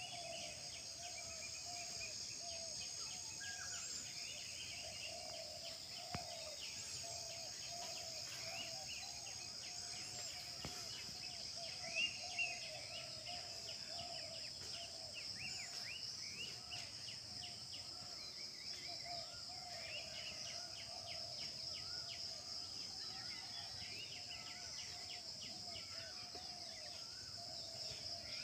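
A chorus of many wild birds chirping and singing, with short rapid notes and lower repeated warbling calls, over a steady high-pitched drone. Two brief knocks come about twelve seconds in.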